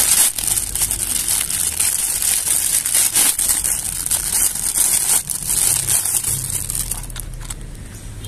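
Thin clear plastic toy bag crinkling and crackling as hands work it open and pull a plastic toy crocodile out. The crinkling fades near the end.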